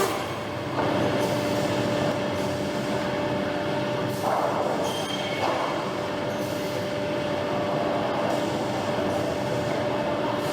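Belt-fed optimizing crosscut saw line with vacuum loader running: a steady mechanical noise with a constant hum, swelling briefly about four and again about five and a half seconds in.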